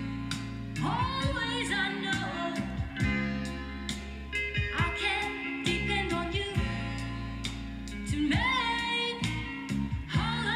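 A song with a singing voice, instruments and a steady beat, played from a vinyl record on a vintage turntable and heard through Altec Lansing Valencia loudspeakers.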